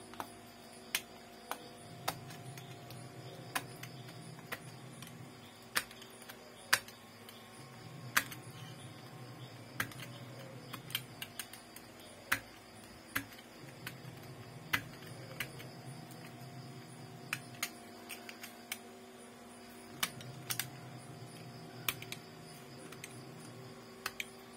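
Irregular sharp clicks and taps, roughly one a second, of a laptop's plastic casing and keyboard parts being handled and pried during disassembly.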